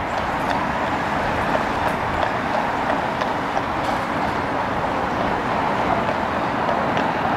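Steady vehicle noise, an even rushing sound with a few faint scattered ticks.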